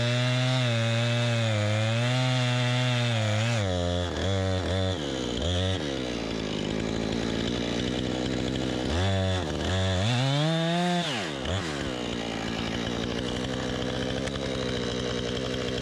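Two-stroke chainsaw cutting wood, running steadily at first, then its engine pitch dipping and climbing several times as it bogs in the cut and revs again. It then runs on with a rougher, noisier sound.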